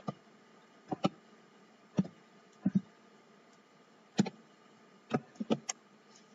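Typing on a computer keyboard: separate sharp keystrokes at an unhurried, uneven pace, about ten in all, a few in quick succession near the end.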